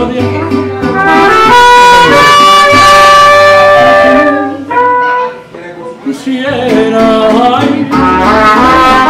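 Live mariachi band playing, led by trumpets with held notes and quick runs, with a short drop in loudness about five seconds in.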